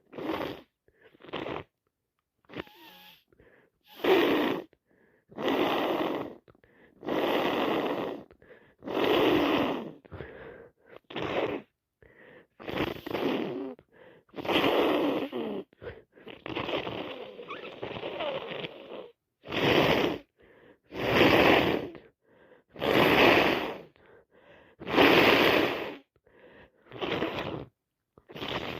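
Woman with a heavy cold making wet nose sounds over and over, a noisy burst of about a second every one to two seconds.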